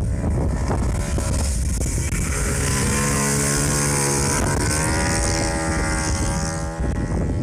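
IMR MiniGP 110 minibike engine going past at speed. Its note holds, dips briefly about halfway through, then climbs again as the bike accelerates away, and fades out near the end.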